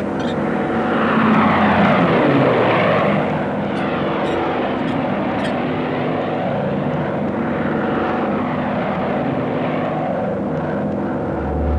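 Propeller aircraft engines droning, swelling as a plane sweeps over about a second in and fading a little after three seconds, then a steady drone whose tone keeps sweeping up and down.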